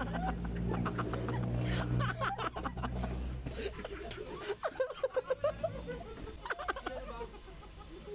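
Chicken clucking: a quick run of short clucks about five seconds in and a few more near the end. A low steady hum is heard under the first three or so seconds.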